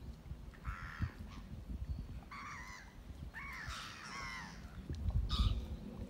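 Crows cawing: a series of harsh calls, four or five in six seconds, one of them longer and wavering in the middle. A brief low rumble about five seconds in is the loudest moment.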